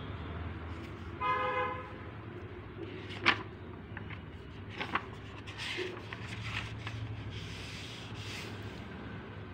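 A short horn toot about a second in, over a low steady hum. Then a sharp tap and a few smaller clicks, followed by soft rustling and handling noise as a book is handled.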